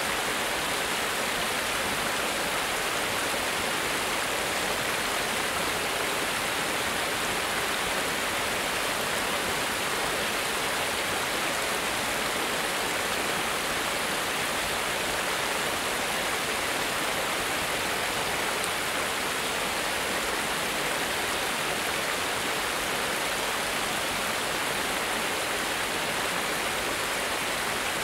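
Water falling over a small cascade in a stream: a steady, even rush of splashing water.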